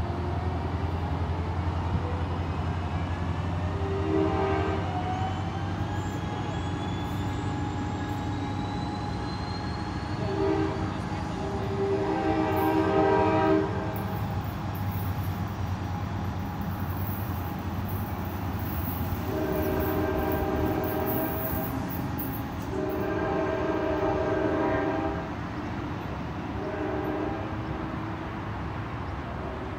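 Amtrak diesel locomotive horn sounding repeatedly over a train's steady low engine rumble: a few blasts early on, then long, long, short near the end, the opening of the grade-crossing signal.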